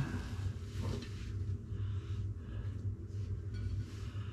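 Steady low hum with a few faint, soft handling sounds.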